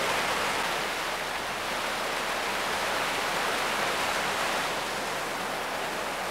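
Small waterfall pouring into a pool: a steady, even rush of falling water.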